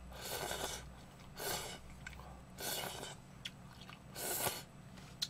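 A person slurping Shin Ramyun instant noodles from a bowl: four short slurps, about a second apart.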